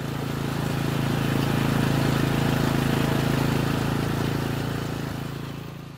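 Riding lawn mower engine running steadily as the mower is driven across grass, swelling in at the start and fading out near the end.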